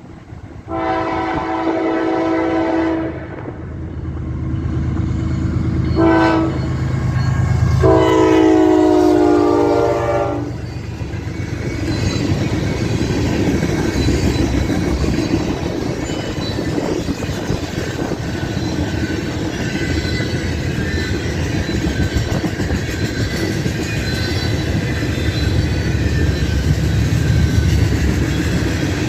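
Freight locomotive air horn sounding a long blast, a short one and another long one, then the train rolling past with steel wheels clattering over the rail joints.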